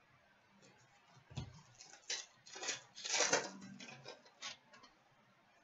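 Hockey card pack being opened by hand: the foil wrapper crinkling and the cards sliding and flicking against each other in a string of soft, short rustles and clicks starting about a second in.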